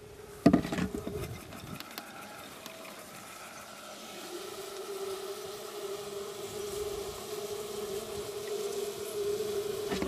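Honey bees buzzing around an open hive, a steady drone that swells about four seconds in. Near the start there is a brief clatter as a plastic tub is handled.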